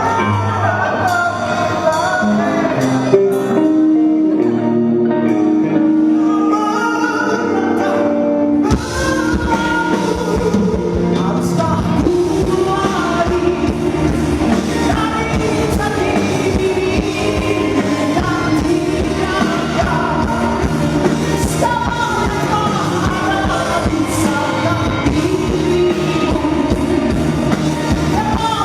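Heavy metal band playing live with a lead singer: a lighter opening of sung lines over held notes without bass or drums, then drums and bass come in about nine seconds in and the full band plays on.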